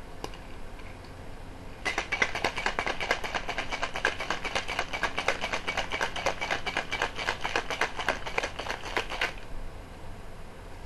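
Cocktail shaker shaken hard, with ice and the mixed shot rattling inside as a fast, continuous clatter. It starts about two seconds in and stops abruptly about seven seconds later.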